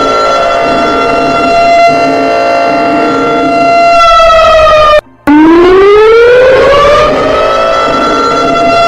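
Civil defense siren sounding loud and steady on one high tone. A little past halfway it sags in pitch and cuts out for a moment, then comes back low and winds up to the same pitch over about two seconds.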